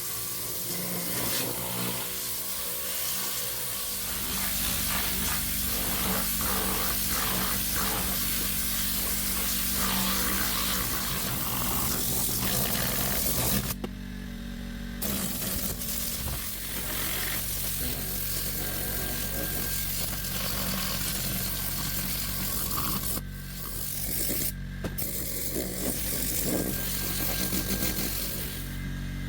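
Compressed-air blow gun hissing in long blasts, cut off for about a second midway and twice briefly later as the trigger is let go, over a steady low hum.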